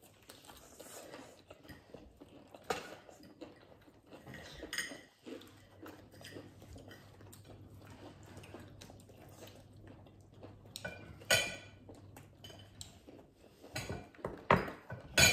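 Eating breaded deep-fried chicken: crisp biting and chewing, with clinks of plates and cutlery. A few sharp clicks stand out, the loudest near the end.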